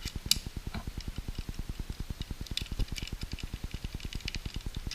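Light clicks and ticks of a spinning fishing reel being handled, over a steady, rapid low pulsing of about ten beats a second.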